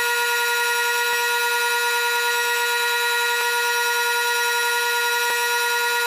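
A lathe's motor spins the resin pen blank with a steady high whine made of several tones over a hiss, while the blank is polished with abrasive pads. Three faint ticks come roughly two seconds apart.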